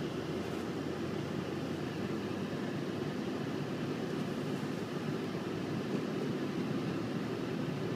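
Steady low rumble of a car driving, heard from inside the cabin: engine and tyres running on a wet, snowy road.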